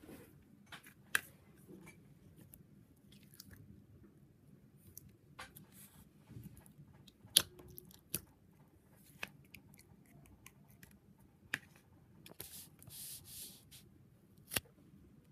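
Small handling noises of hands working with toys and a slime container: scattered light clicks and taps, with a short stretch of soft rustling near the end.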